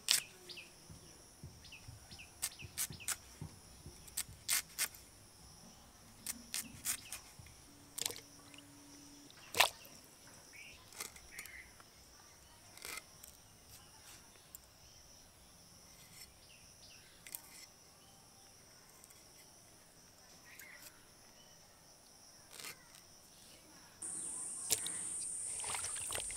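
Vegetables being cut on a boti, a fixed curved blade: scattered sharp clicks and snaps as the pieces are sliced through, thickest in the first half. Near the end a steady hiss starts suddenly as cut vegetables are swished in a bowl of water.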